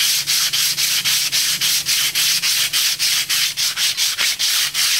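Sandpaper being rubbed by hand over primer on a steel rear axle housing in quick back-and-forth strokes, about four a second, a steady rhythmic scratching. The sanding knocks the primer flat while leaving it filling the rust pits.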